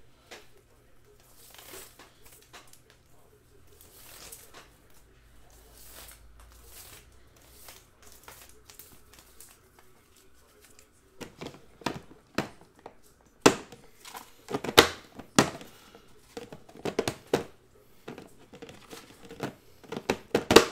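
Plastic wrapping crinkling and rustling as it is handled, faint at first and then, about halfway through, a run of loud, sharp crackles.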